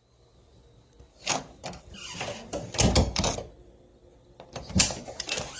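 Old door opening and closing: a latch click, a short creaking squeal from the hinges, heavy knocks as it swings, and a sharp bang near the end as it shuts.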